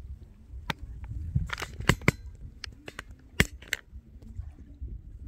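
Irregular sharp clicks and knocks from fishing tackle being handled, likely the rod, reel and feeder as weed is cleared from the line. The loudest clicks come about two and three and a half seconds in.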